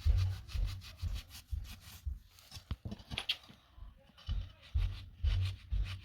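Repeated rubbing and scraping strokes: cleaning dust, dirt and rust off a rusted steel wheel rim's bead seat, where the rust is letting air leak past the tire bead. The strokes come irregularly, about twice a second, with dull bumps among them.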